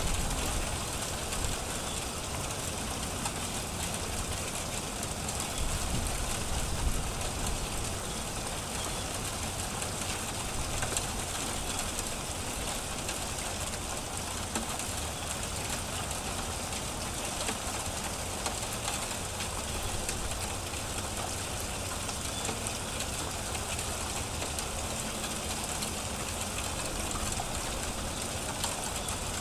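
Small hail and rain falling steadily: a constant patter with scattered faint ticks of pellets striking, over a low rumble.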